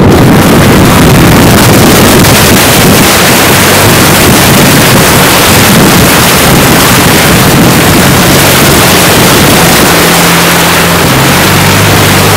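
Off-road 4x4 driving through a water-filled ditch: a loud rush of water thrown up against the body, with the engine running underneath. The engine note comes through more plainly near the end.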